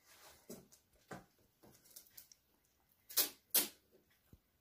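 Cardboard box being scratched and bitten at by a cat: a handful of short, sharp scrapes and rustles of claws and teeth on cardboard, the two loudest close together about three seconds in.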